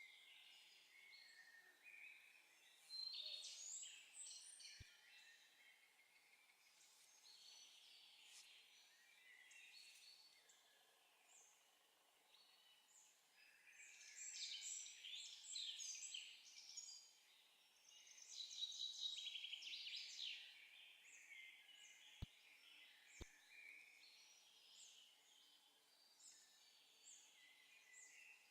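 Faint songbird song: birds singing in bouts of quick, high chirping notes. Two faint clicks about a second apart come in the second half.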